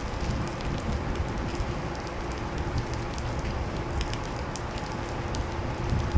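Light rain falling, a steady patter dotted with small scattered drip ticks, over a low rumble.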